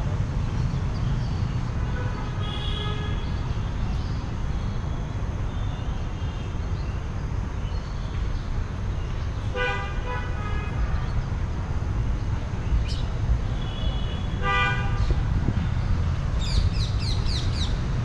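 Steady low rumble of city traffic with vehicle horns honking three times, each about a second long. A quick run of high bird chirps comes near the end.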